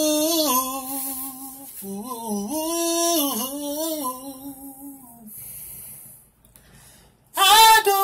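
A man singing unaccompanied, holding long wordless notes that slide between pitches. The voice drops away for a couple of seconds past the middle, then comes back loud near the end.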